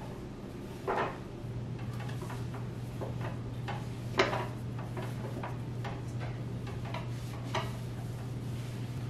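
Light knocks and clicks of household objects being handled and set down, three of them sharper than the rest, the loudest about four seconds in. A steady low hum runs underneath.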